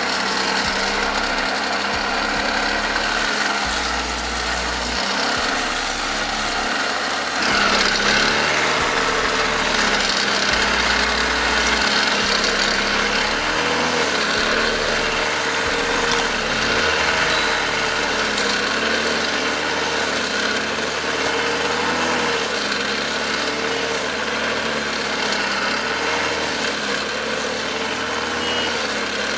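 Backpack brush cutter's small petrol engine running at working speed, its homemade blade (cut and welded from an old worn brush cutter blade) slashing through low weeds and grass. The engine pitch wavers a little as it meets the growth, with a louder surge about seven to eight seconds in.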